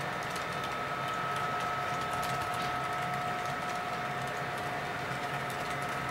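Model train of double-stack container cars rolling past on the layout's track: a steady running rattle with faint light clicking of the wheels over the rails, under a steady high hum.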